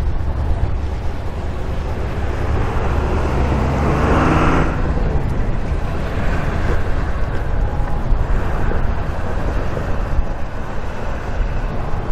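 Steady low rumble of a freight train's diesel locomotives pulling away, with a brief pitched tone about four seconds in.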